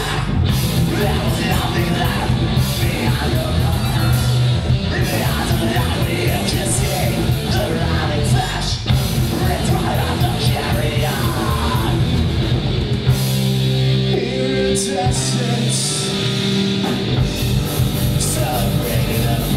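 Live rock band playing: electric guitar, bass guitar and a drum kit, with a man singing into the microphone. About thirteen seconds in the band thins out, with the lowest notes dropping away for a few seconds before the full band comes back in.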